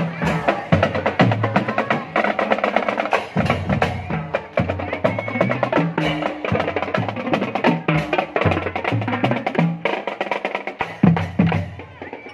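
Marching drum band playing a fast, steady rhythm, with snare drums rattling over pitched bass drums that step between several low notes.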